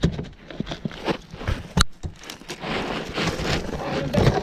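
Footsteps scrambling on a steep slope of dry dirt, leaf litter and dead branches: sharp cracks and knocks in the first two seconds, then a longer scraping of shoes over loose ground.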